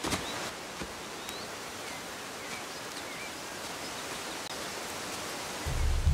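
Steady rushing of a waterfall, with a few faint bird chirps over it. A deep low rumble comes in near the end.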